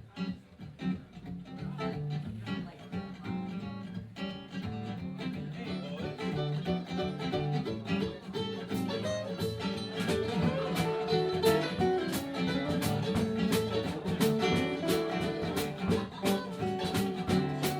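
A live country band starting a song: guitar playing an instrumental intro that builds from quiet, with a steady beat of sharp hits coming in about halfway through.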